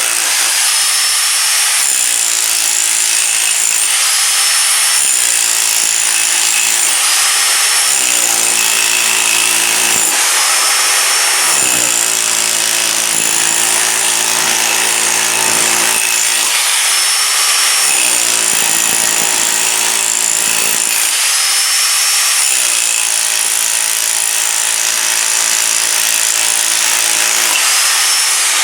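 Bauer 10.5 amp SDS Max rotary hammer running continuously with a 1-inch chisel bit, hammering and chipping into a concrete foundation. Its loud, steady clatter holds throughout, while the motor note rises and drops every few seconds.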